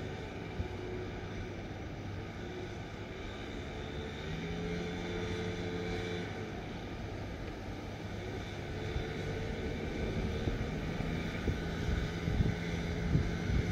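A steady motor drone with a low hum that rises into a pitched tone twice and fades again, and a few light knocks near the end.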